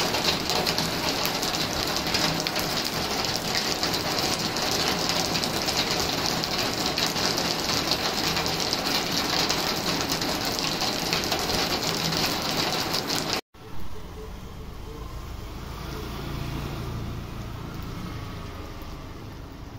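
Heavy rain falling steadily, a dense even hiss of downpour on roofs and a flooded street. About two-thirds through it cuts off abruptly to softer rain on a wet road, with a motorcycle going by.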